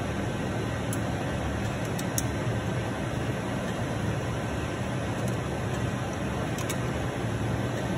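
Steady low machine hum and hiss, even throughout, with a few faint light ticks.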